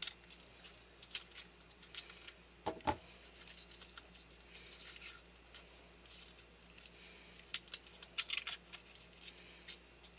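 Dry, papery garlic skin crackling and rustling in scattered small bursts as a clove is peeled by hand, with a soft knock about three seconds in.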